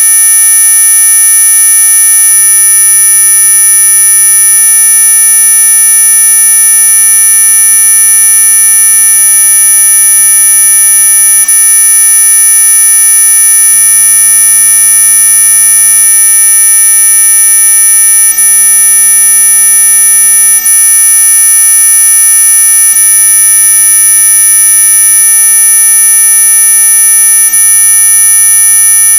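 Electronic mosquito-repellent tone: several steady, unchanging tones sound together, loud and continuous, the strongest very high-pitched. It is a so-called ultrasonic sound meant to keep mosquitoes away.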